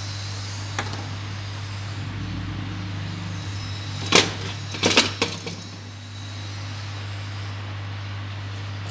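Steady low hum with a few sharp taps and clicks about four and five seconds in, from small repair tools being handled at the workbench.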